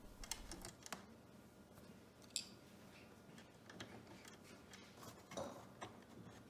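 Faint, scattered clicks of small plastic parts being handled: outlet spacers being fitted behind an electrical receptacle's mounting ears. There is a sharper click about two and a half seconds in and a short cluster of clicks near the end.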